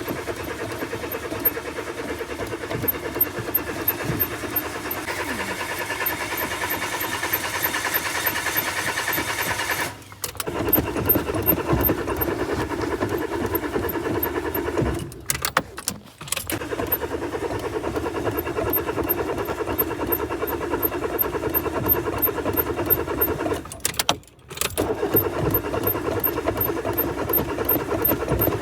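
Car starter cranking the engine over in long stretches, with short breaks about 10, 15 and 24 seconds in, as the engine fails to start.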